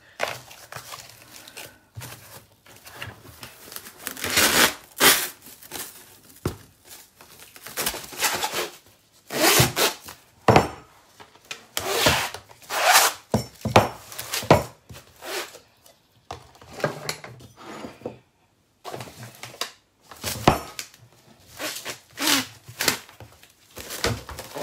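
Plastic cling film pulled off its roll in rasping, crackling strips and stretched and rubbed over a plastic bowl, in irregular bursts every second or two.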